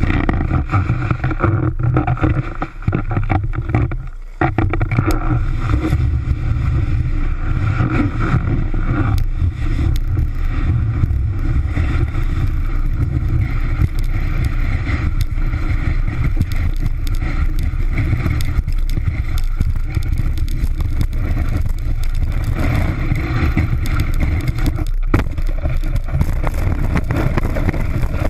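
Snowboard running over snow, picked up through a camera housing mounted on the board: a loud, steady rumble and scrape with small knocks from bumps, easing for a moment about three seconds in.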